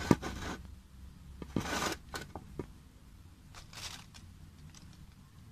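Handling noise: a sharp click just at the start, then a few short rustling scrapes and lighter clicks that die away.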